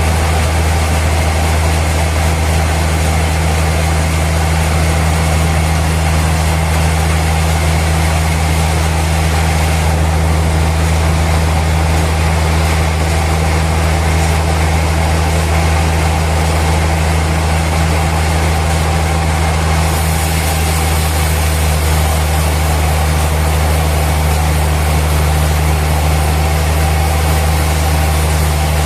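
Heavy sawmill machinery running steadily with a deep, even engine hum; a higher hiss joins about two-thirds of the way through.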